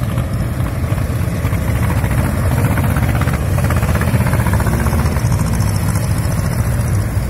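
Old tractor engines chugging as a procession of vintage tractors drives past, a dense low pulsing rhythm that is a little louder about halfway through as the nearest tractor passes.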